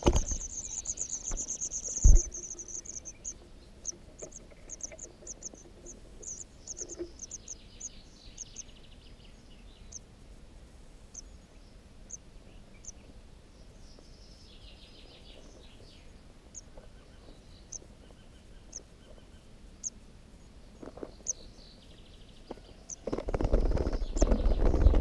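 White wagtail nestlings giving thin, high-pitched begging peeps, a rapid run at first that thins to scattered single peeps. Two sharp thumps come in the first two seconds as the parent wagtail flies off. Near the end a loud rustling flutter comes as the adult returns to the nest hole.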